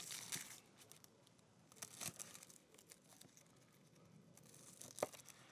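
Faint crackling and tearing of dry, papery shallot skins being peeled and trimmed, in scattered short rustles with a sharp click about five seconds in.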